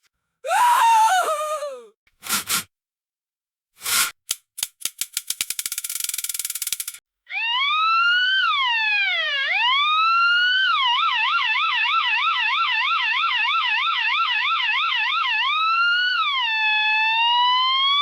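Electronic siren: a slow rising and falling wail that switches to a fast yelp warbling about three times a second, then back to a slow wail. Before it come a short falling tone, two brief noisy bursts and a run of clicks that speeds up.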